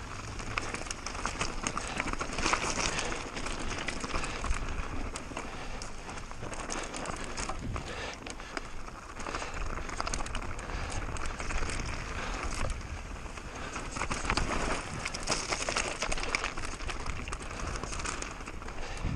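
Mountain bike ridden fast downhill on a rough trail: tyres crunching over loose ground and the bike rattling over bumps, mixed with wind noise.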